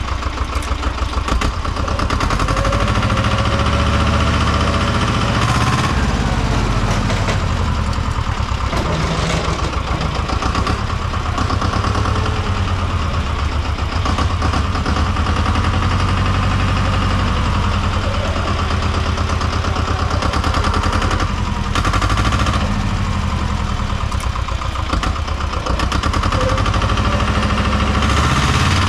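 Engine of a Tomo Vinković TV 731 small tractor running steadily while it pushes snow with a front blade. The note swells and dips a little as the load changes.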